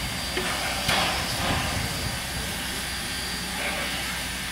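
Two standing steam locomotives, Robert Dollar No. 3 and Quincy Railroad No. 2, hissing steadily, with a short louder rush of steam about a second in.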